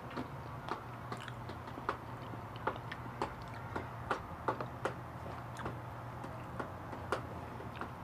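Mukbang eating sounds picked up by a clip-on microphone: irregular sharp, wet mouth clicks and smacks of chewing, roughly two a second, over a steady low hum.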